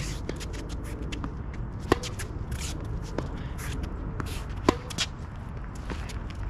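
Tennis rally: sharp pops of the ball off racket strings, the loudest about two seconds in and just before five seconds, with fainter bounces and the scuffing of players' shoes on the court between shots.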